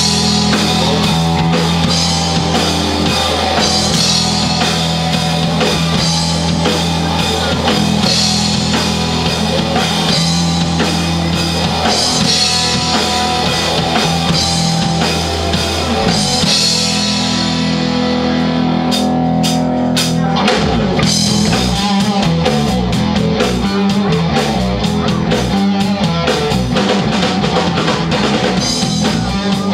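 Live rock band playing: electric bass, drum kit with cymbals and electric guitar. About two-thirds of the way through, the cymbals drop out briefly, a few sharp drum hits land, and the band comes back in with a choppier beat.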